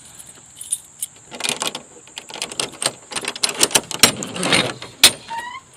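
Clattering, knocking and rustling of objects being handled, with a short squeak near the end and a steady faint high whine underneath.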